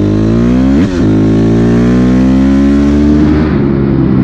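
2006 Honda CRF250R four-stroke single-cylinder dirt bike engine under way. Its pitch jumps briefly about a second in, then climbs steadily as the bike accelerates, and eases off near the end.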